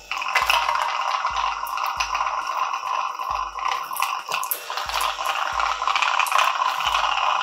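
Kenwood electric hand mixer switching on about half a second in, then running steadily as its twin beaters whip heavy cream in a glass bowl toward stiff peaks.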